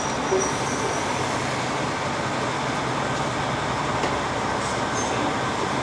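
KiHa 40 diesel railcar creeping into a station platform, its diesel engine running steadily under the noise of the train rolling along the track.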